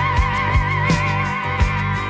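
Instrumental break of a rock song: a high lead note held with a fast, even vibrato over a steady bass line and a drum beat, one hit about every three-quarters of a second.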